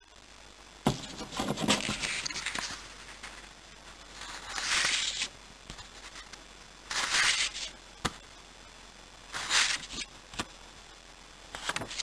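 Crisp new paper banknotes rustling and crackling as they are handled and slid over a paper envelope, in about five short bursts with a few sharp clicks between them.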